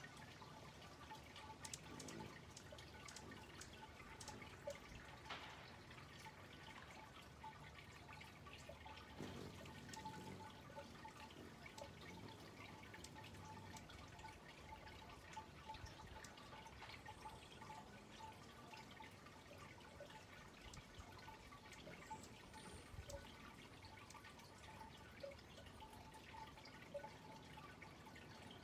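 Near silence: faint outdoor background with scattered soft ticks.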